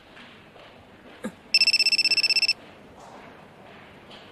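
A mobile phone ringing for an incoming call: one trilling electronic ring about a second long, starting about a second and a half in, with a short click just before it.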